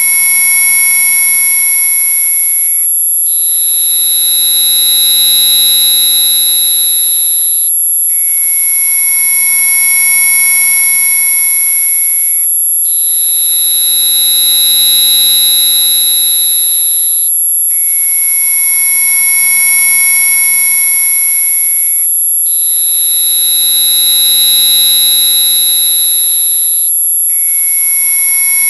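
Loud, electronically generated mosquito-repellent tones: a steady, very high-pitched whine held over several fainter steady tones. About every five seconds the pattern breaks off for an instant and changes, its middle tone switching between a lower and a higher pitch, with a low hum joining under the higher one.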